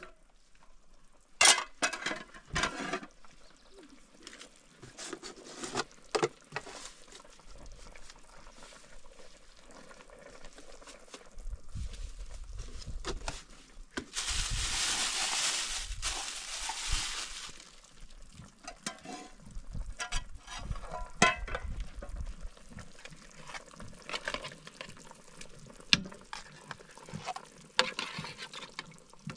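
Cooking sounds: scattered clicks and knocks of utensils and vessels being handled, with a steady hiss of liquid for about three seconds in the middle.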